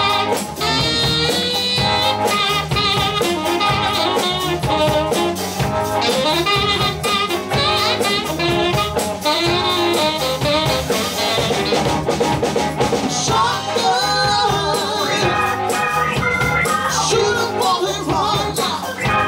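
Live soul-blues band playing: saxophone and trumpet lines over drum kit, electric bass, electric guitar and keyboard, with a lead vocal.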